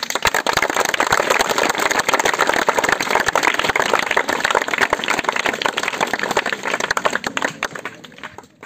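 Crowd clapping, starting suddenly and fading away near the end.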